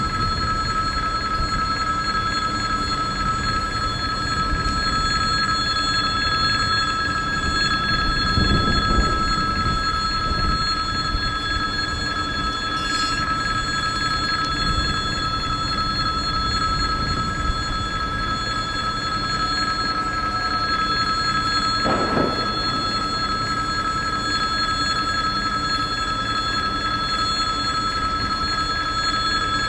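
Level-crossing warning bell ringing steadily and unbroken while the crossing is closed, over a low rumble.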